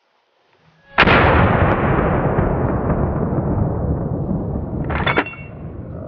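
A hunting gunshot about a second in, followed by a loud rumbling tail that fades slowly over about four seconds. A second sharp crack comes about five seconds in.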